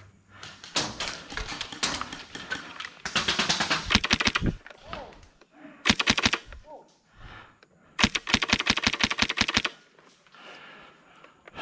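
Airsoft guns firing rapid full-auto bursts of sharp clicks: four bursts, the longest lasting a second and a half or more, the third very short.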